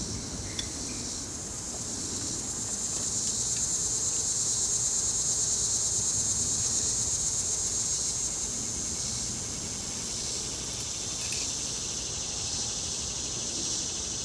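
High-pitched insect buzz with a fast, even pulse, swelling over several seconds and then easing, over a low hum of honey bees at an open hive.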